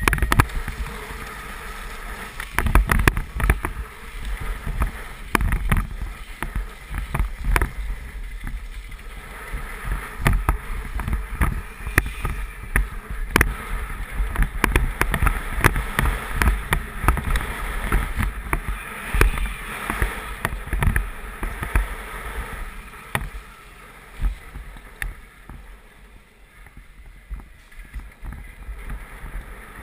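BMX bike ridden at speed down a track: wind buffets the rider-mounted camera's microphone over tyre roar on the track surface, with frequent clicks and knocks from the bike over the bumps.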